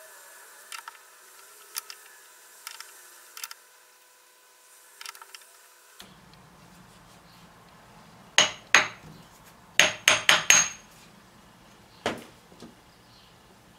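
Light metallic clicks as parts are handled, then a steel hammer striking the cast iron cylinder head seated on punches to dimple the bolt-hole positions: two blows about eight seconds in, a quick run of four, and one more near the end, each with a short metallic ring.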